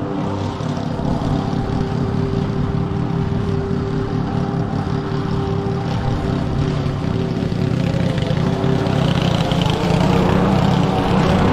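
Petrol lawn mower engine running steadily under load while cutting thick wet grass, getting somewhat louder in the last few seconds.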